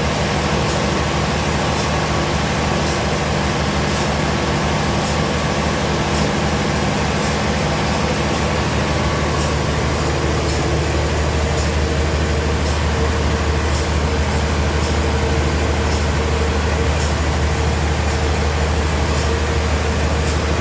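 Heavy sawmill machinery running steadily: a low hum, with a faint tick about once a second. About halfway through, the hum shifts to a deeper, stronger tone.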